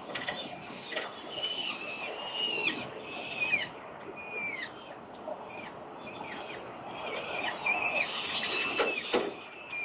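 Peregrine falcon chicks calling to beg for food: repeated short, high, wavering calls in two runs, with a quieter gap in the middle. A few sharp clicks sound over a steady background rush.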